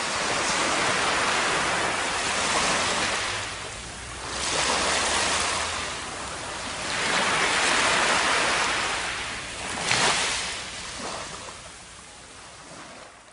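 Small waves washing up a sandy beach and drawing back, swelling and ebbing every few seconds, then fading out near the end.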